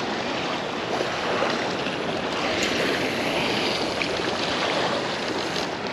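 Waves washing against the granite blocks of a jetty, a steady, even wash of water.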